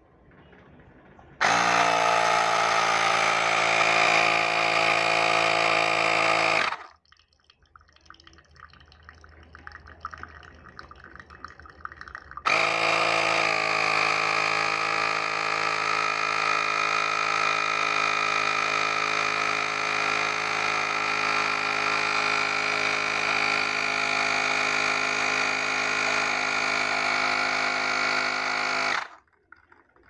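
Small portable electric pump of a modified moka-pot espresso rig running with a steady whine, forcing water through the coffee basket. It runs for about five seconds, stops for about six seconds with only faint crackling, then starts again and runs until just before the end.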